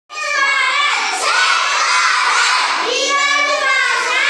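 A class of young schoolchildren chanting loudly in unison, a high sing-song chorus of many voices.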